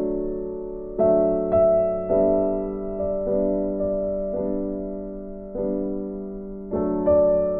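Background piano music: chords struck about once a second, each ringing on and fading slowly.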